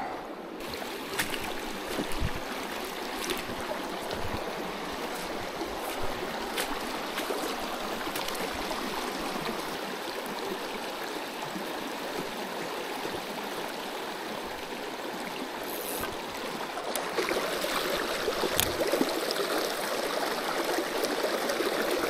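Small rocky creek running over stones: a steady rush of flowing water that grows a little louder near the end.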